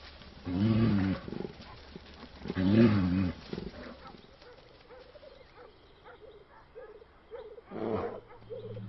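A bear growling: two drawn-out low growls of about a second each, about two seconds apart, with a wavering pitch, and a shorter louder sound near the end.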